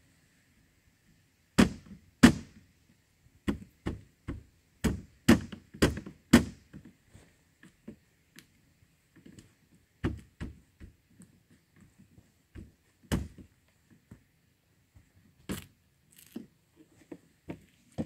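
Dull knocks and thunks on wood while a window is being fitted into a wooden chicken coop wall. About nine strike in a quick run from about one and a half to six and a half seconds in, and a few more come scattered after.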